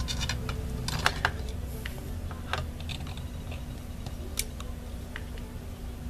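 Small plastic clicks and taps as a Mac Mini's black internal cooling fan is handled and pressed back into place. Two sharper clicks come just over a second in, and another at about four and a half seconds.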